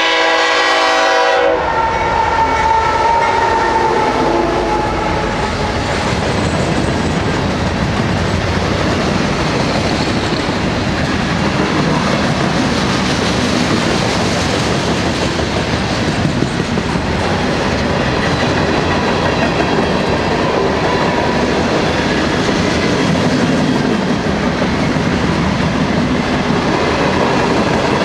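Freight train led by Canadian Pacific locomotives: the horn sounds and cuts off about a second and a half in, trailing off over the next few seconds, then the train rolls by with steady wheel-and-rail clatter.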